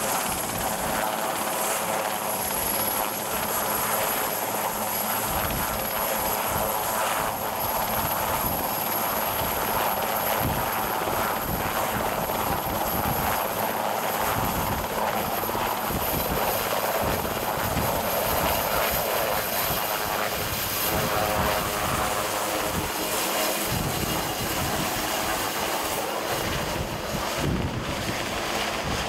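Sikorsky VH-3D Sea King (Marine One) helicopter running with its main rotor turning, its twin turbine engines giving a steady loud noise with a high whine, then lifting off and climbing away near the end.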